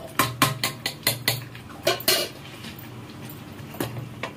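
Metal kitchen utensils and dishes clinking: a quick run of sharp clinks over the first two seconds, then a few more near the end.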